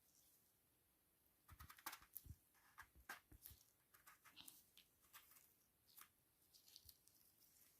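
Very faint, irregular clicks and light taps, starting about one and a half seconds in.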